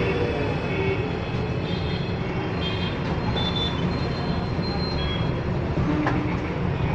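Steady low rumbling din around a busy parotta griddle in a restaurant kitchen, with one sharp knock about six seconds in.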